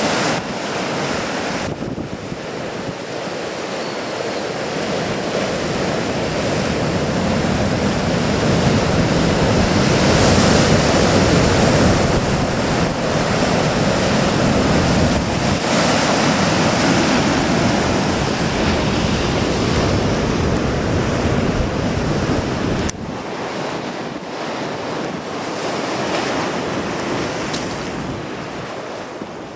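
Sea surf surging and breaking on a rocky shore, with strong wind buffeting the microphone. The wash builds to its loudest in the middle, then drops suddenly about three-quarters of the way through.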